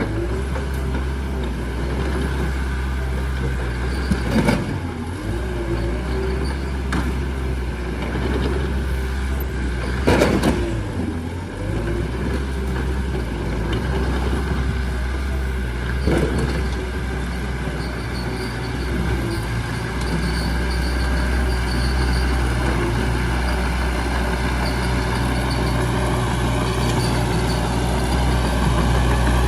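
Small bulldozer's diesel engine running steadily under load, with a wavering squeal over it and sharp metallic knocks about 4, 10 and 16 seconds in, the one near 10 seconds the loudest.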